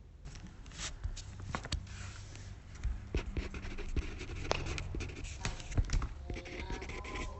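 Irregular scratching and rustling with many small clicks and taps, close to the microphone.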